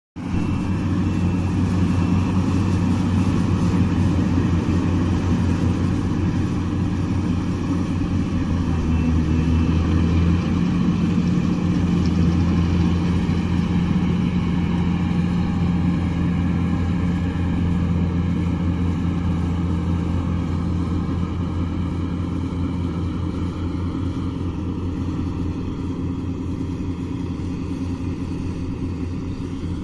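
Yanmar rice harvester's diesel engine running steadily under load, with a shift in pitch about ten seconds in, then slowly fading over the last third.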